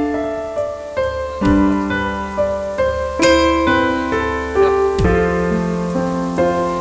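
Piano music: a slow, gentle melody of single notes and chords, each struck and left to ring.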